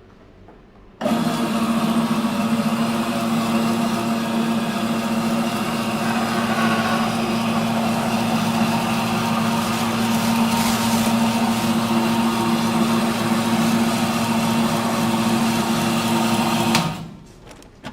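Electric noodle-making machine running, its motor humming steadily as it cuts the dough into noodles. It switches on abruptly about a second in and stops near the end.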